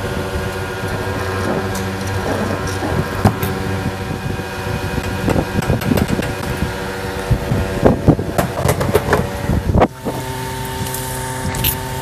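Fuel dispenser pump humming steadily while diesel is pumped through the nozzle into the tank, with scattered clicks and knocks from handling. About ten seconds in the hum breaks off briefly and resumes with a different pitch pattern.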